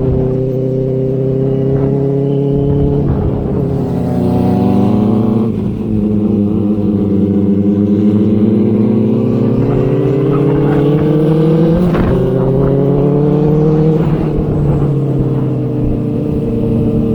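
Inline-four sport motorcycle engine under way, picked up by a camera's stock microphone. Its pitch shifts early on, climbs steadily through the middle as the bike accelerates, then drops sharply with an upshift about four-fifths in and holds steady.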